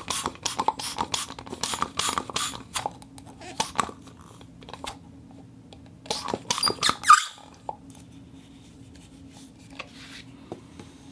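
Squeaky sounds made with a vacuum cleaner's suction: quick, irregular squeaks and chirps for about five seconds, another run of them around six to seven seconds in, then only a few faint ticks, over a steady low hum.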